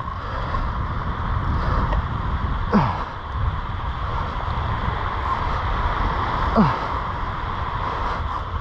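Wind buffeting the camera microphone, a steady low rumble, with two short grunts of effort falling in pitch about three and six and a half seconds in, from the angler straining on a surf rod against a hooked shark.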